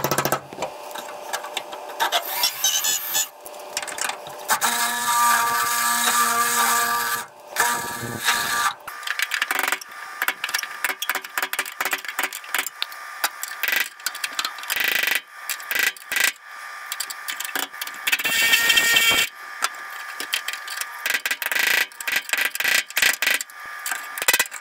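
Metal tools working at a spot weld on the rusted steel tail panel of a 1989 Chevy K5 Blazer: rapid, irregular metal-on-metal knocks and clatter in bursts with short pauses, with the sheet metal ringing briefly several seconds in.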